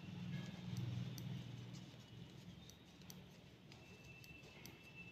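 Metal knitting needles clicking lightly and irregularly against each other as wool is knitted. A low background hum is loudest in the first two seconds.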